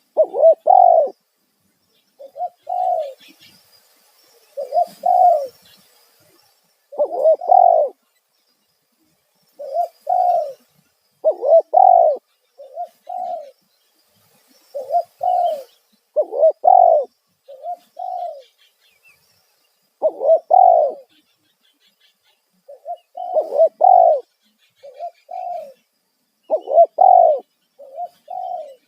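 Spotted dove (tekukur) cooing loudly in repeated phrases of two or three short, low notes, with a phrase every couple of seconds. This is the loud 'kuk satu' call used to lure wild doves.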